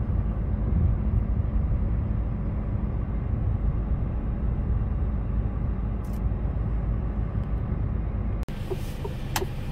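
Steady low rumble of a lorry's diesel engine and road noise, heard from inside the cab while driving. About eight and a half seconds in it cuts off abruptly to a brighter, more open sound with a few sharp clicks.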